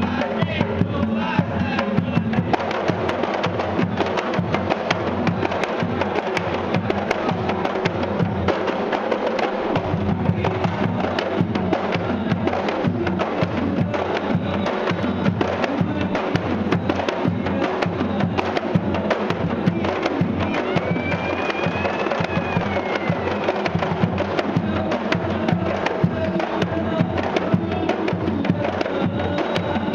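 A troupe of kompang, Malay hand-struck frame drums, played together in a dense, steady beat, with a lead singer singing over them through a microphone.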